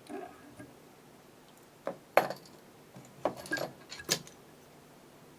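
Small metal fly-tying tools clicking and clinking while the fly's head is whip-finished: a couple of sharp clicks about two seconds in, then a quick cluster of clinks a second later.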